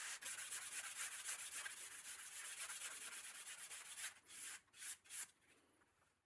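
Hand-sanding a thin wood veneer deck coated with hardened CA glue: quick back-and-forth strokes of sandpaper. About four seconds in the strokes turn into a few separate, slower passes, then stop.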